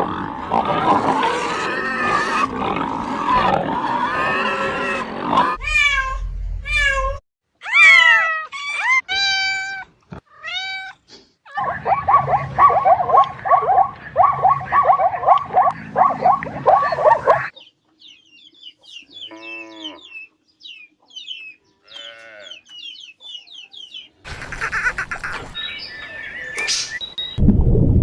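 A series of different animal calls, changing every few seconds: a dense overlapping chorus first, then separate gliding cries, a rapid run of repeated calls, faint high chirps, and a noisy stretch near the end.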